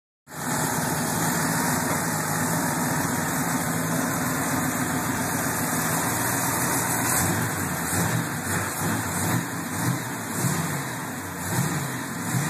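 V8 engine idling steadily, then revved in several short blips in the second half, each rise in pitch falling back toward idle.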